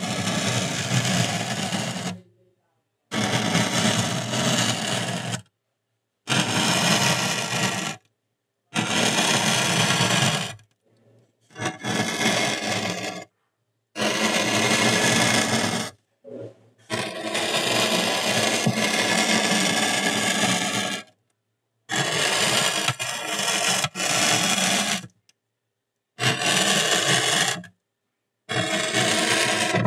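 Hot soldering-iron tip drawn across polystyrene foam, crackling and scraping as it melts grooves. It comes as about ten strokes of two to four seconds each, with silence between them.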